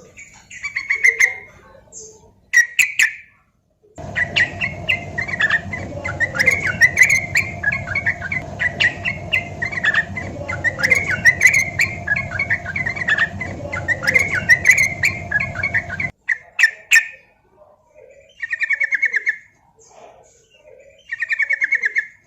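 Yellow-vented bulbul (trucukan) singing: quick, bubbly chattering phrases, packed into a continuous run from about four seconds in to sixteen seconds in over a steady background hum, then given as separate short rattling phrases.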